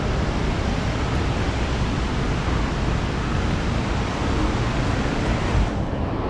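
Strong wind buffeting the microphone with a low uneven rumble, over a steady rushing hiss from the Montmorency waterfall; the hiss drops away suddenly near the end.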